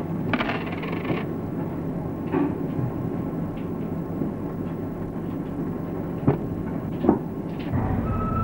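Steady low background rumble with a faint hum, broken by a short clatter about half a second in and two sharp knocks near the end.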